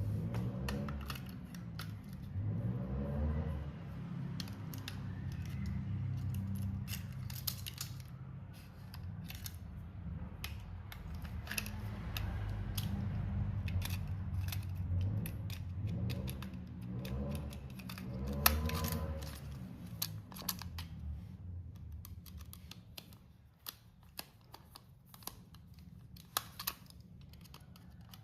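Model train running on its track: a steady low rumble with many sharp, irregular clicks, getting quieter over the last few seconds.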